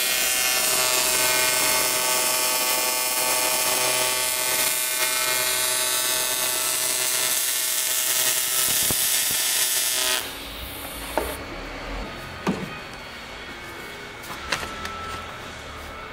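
TIG welding arc on aluminium sheet: a steady buzz with a hiss over it, which cuts off suddenly about ten seconds in. After it come a few light knocks as the welded aluminium part is handled.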